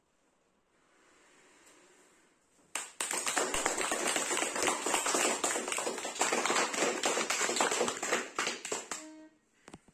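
Applause: a group of people clapping, starting suddenly about three seconds in after a pause and dying away to a few last claps near the end.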